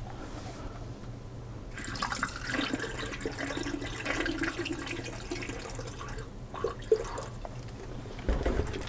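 Distilled water being poured through a funnel into a PC water-cooling reservoir, splashing and trickling for a few seconds from about two seconds in as the loop is filled. A sharp click near the end of the pour and a dull knock near the end.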